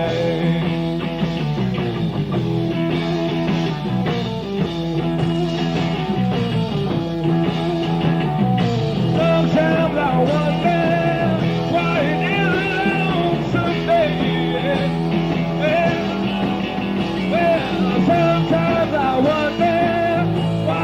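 Live rock band playing an instrumental stretch of the song between sung verses, with wavering melodic lines over the band. Dull, bass-heavy bootleg recording.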